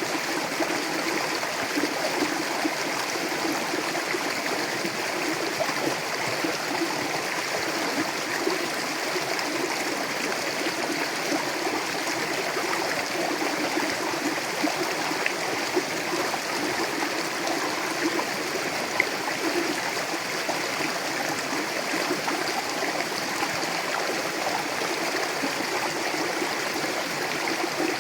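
Mountain river flowing steadily over rocks: a constant rushing with small gurgles and splashes.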